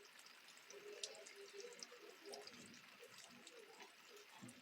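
Faint rain dripping, with scattered drops ticking irregularly, one sharper drop about a second in.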